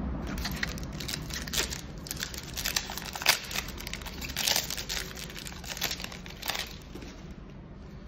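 Foil booster-pack wrapper crinkling and being torn open by hand: an irregular run of sharp crackles, loudest around the middle, dying away near the end.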